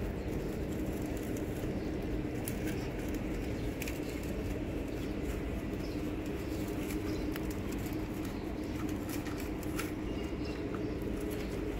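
Stray cats eating from foam trays, with scattered small clicks of food being chewed and trays being nudged, over a steady low hum of street background.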